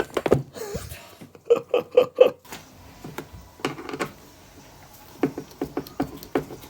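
Scattered sharp clicks and taps of dishwasher parts and tools being handled during disassembly. A quick run of four short pitched blips comes about one and a half seconds in.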